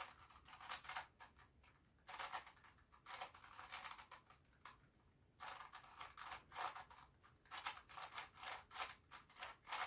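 Grilles II plastic twisty puzzle cube being turned by hand: faint clicking and scraping of its layers as they turn. The sound comes in bursts of several turns with short pauses between, the longest pause about halfway through.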